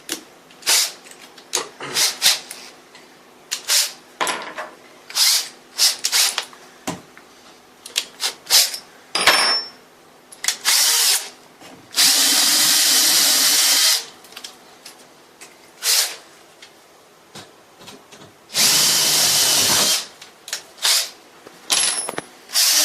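Power drill boring the lock hole through a window sash, stepped up from a pilot hole toward about a 10 mm hole. It runs in many short trigger bursts, with longer steady runs about halfway through and again near the end.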